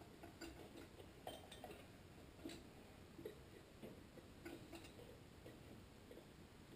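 Near silence with faint, scattered small clicks and rubbing from hands fitting a rubber fuel line onto a small-engine carburetor.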